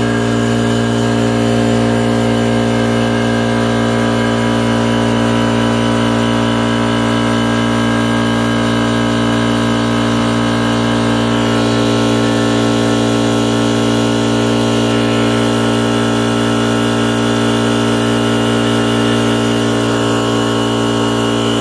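Portable 4500 psi high-pressure PCP air compressor running steadily under load: a constant mechanical hum with a dense, unchanging set of tones as it fills an air gun's reservoir.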